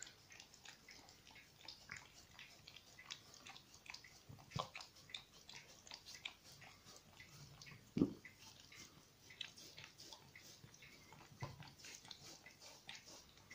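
A dog licking a plastic feeding tray: faint, rapid wet licks and tongue clicks, with a few louder knocks against the tray, the loudest about eight seconds in.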